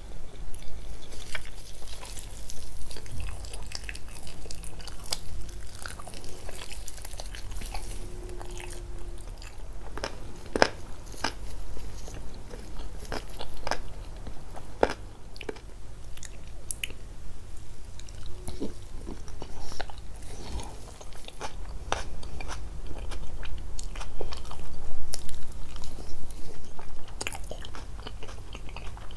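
Close-miked eating sounds: chewing and biting into fried chicken and molokhiya, with irregular crisp crunches and mouth clicks.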